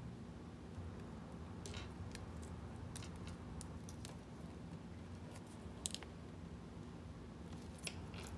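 Faint scattered clicks and rustles of monofilament fishing line being worked by hand through a barrel swivel and pulled into a knot, over a low steady hum.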